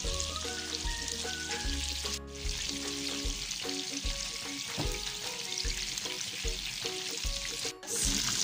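Floured, egg-coated chicken pieces deep-frying in very hot oil: a steady, busy sizzle and crackle of bubbling oil, broken off briefly twice, about two seconds in and near the end.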